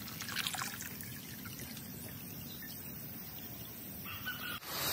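Water trickling and pouring in a faint, steady flow from the cold spring-fed supply, until it cuts off abruptly near the end.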